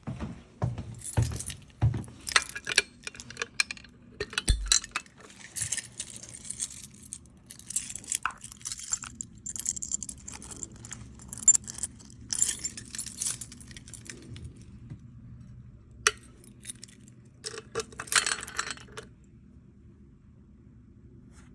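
A bunch of keys jangling and clinking in irregular bursts, with clicks and knocks as they are handled; it stops near the end.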